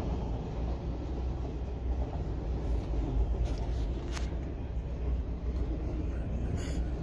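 Freight train of auto rack cars rolling by, a low steady rumble, with a few short clicks partway through.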